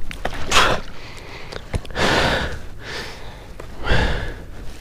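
A man breathing hard: three loud breaths, each about a second and a half apart.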